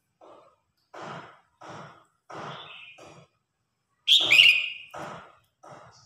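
Red-whiskered bulbul singing a run of short, harsh song phrases, about eight of them. The loudest, around four seconds in, has clear whistled notes.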